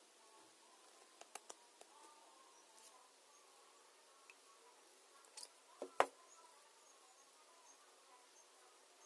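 A few light clicks and taps from small objects being handled, in a quick cluster in the first three seconds and the sharpest about six seconds in, over a faint steady whine.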